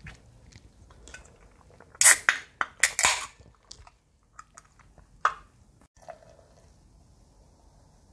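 Close-miked eating of spicy ramen noodles: a run of loud slurps about two seconds in, a shorter slurp about five seconds in, and chewing with small wet mouth clicks in between.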